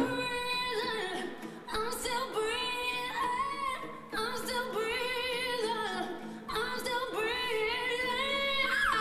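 Slow song playing: a sung melody in long held notes over light accompaniment, with short breaks between phrases about every two seconds.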